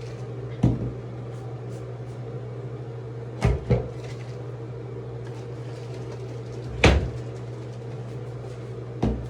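Hand trigger spray bottle of diluted conditioner spritzing a synthetic-hair wig: five short, sharp sprays spaced a few seconds apart, two of them in quick succession.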